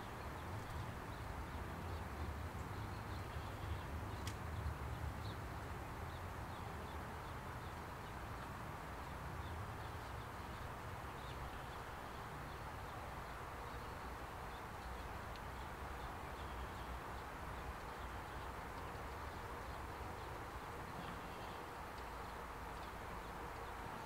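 Steady outdoor background noise with a low rumble, and faint, short, high bird chirps scattered throughout.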